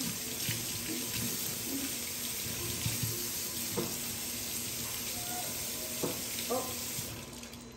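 Kitchen tap running into the sink, a steady rush of water with a few knocks and clinks, shutting off about seven seconds in.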